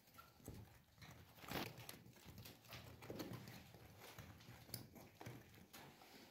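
Faint, irregular scraping and tapping of a small hand tool on plaster ceiling moulding as softened paint is scraped away. The clearest knock comes about one and a half seconds in.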